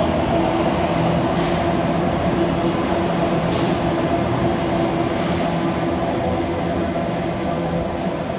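Electric passenger train running, a steady hum of several fixed pitches over rumbling noise.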